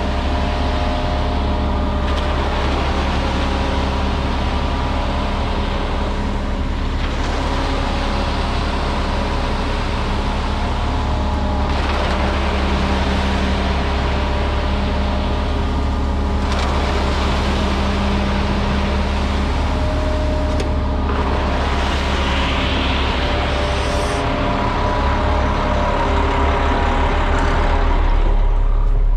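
Concrete mixer truck's diesel engine running steadily, with a rushing hiss that swells and fades every few seconds.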